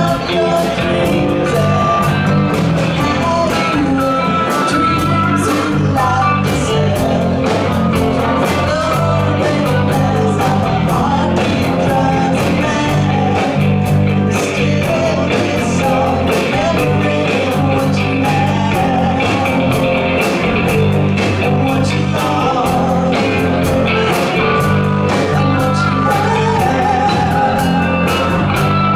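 A live rock band playing: electric guitars, bass guitar and a drum kit, with a singer.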